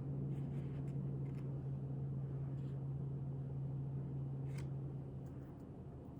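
Steady low machine hum that eases off about five seconds in, with a few faint, light clicks.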